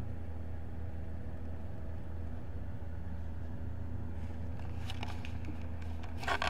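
A steady low hum, with rubbing and clicking handling noise on the camera from about four seconds in and a loud scrape near the end as fingers cover the lens.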